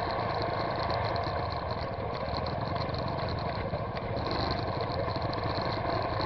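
Trail motorcycle engine idling steadily, close to a camera mounted on the bike.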